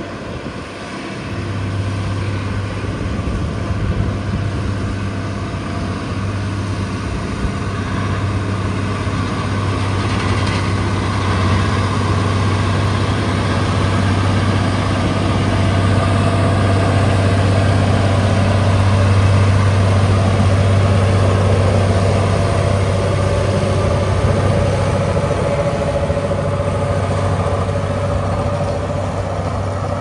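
Heavy diesel construction machinery running steadily, a continuous low engine drone that grows a little louder toward the middle.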